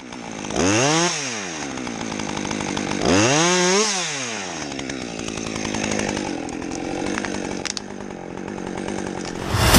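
Chainsaw engine revved hard twice, its pitch climbing and falling each time, then running on more steadily.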